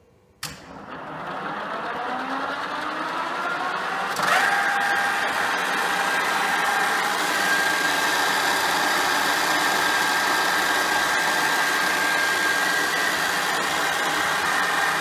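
Dufour 221R milling machine's spindle starting with a click, its whine rising in pitch for about four seconds as it runs up to speed, then running steadily with a level, high whine.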